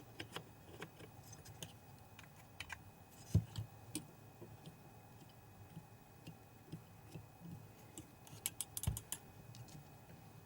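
Irregular light clicks and taps of small plastic and metal parts being handled as a DLP projector's colour wheel motor assembly is fitted into place, with two heavier knocks, one about a third of the way in and one near the end amid a quick run of clicks.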